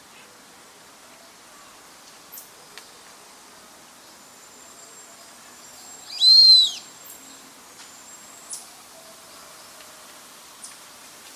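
Brazilian teal giving a single loud, high whistled call about six seconds in, over a steady background hiss, with a few faint high chirps around it.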